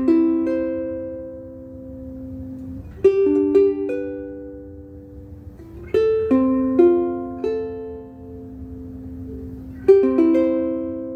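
Ukulele strung with Aquila Big Black strings, fingerpicked in arpeggiated chords: four phrases of quickly plucked notes, each left to ring out and fade.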